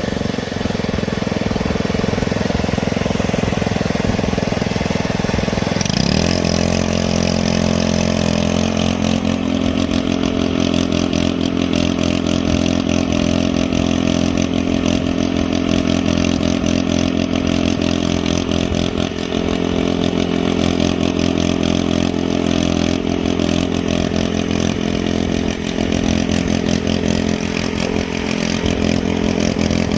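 Engine running steadily, with a clear droning pitch that shifts to a different steady note about six seconds in, as if the throttle was changed.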